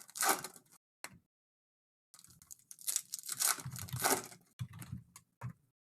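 Trading-card packaging being torn and crinkled open by hand, an irregular run of tearing and crackling that fills most of the second half, after a short rustle and a single click near the start.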